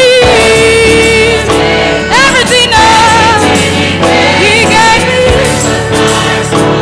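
Live gospel singing: a female lead vocalist sings into a handheld microphone with a youth choir singing behind her, her held notes wavering with vibrato.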